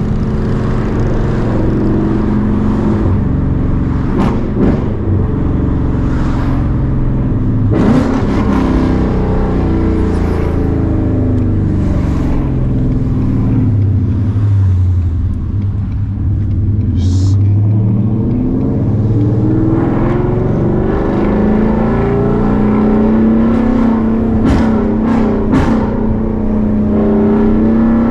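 2021 Ford Mustang GT's 5.0 Coyote V8, running catless long-tube headers, pulling and shifting while driving; the engine note rises and falls again and again. A few short sharp cracks come through the exhaust sound.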